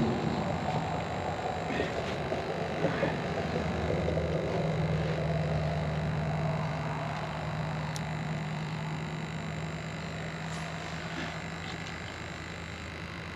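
A distant motor engine droning steadily, strongest mid-way and slowly fading away over the last several seconds.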